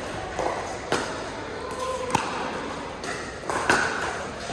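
Pickleball paddles striking a plastic ball during a rally: several sharp hits about a second apart, each ringing briefly in the large hall.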